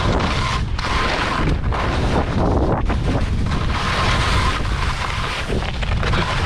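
Wind buffeting a GoPro's microphone as a skier runs fast downhill, a steady low rumble, with the hiss and scrape of skis on wind-packed snow rising and falling over it.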